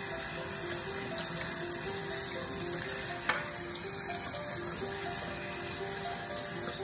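Tap water running and splashing into a stainless steel sink as raw chicken is rinsed by hand, under light background music playing a simple melody. A sharp click about halfway through.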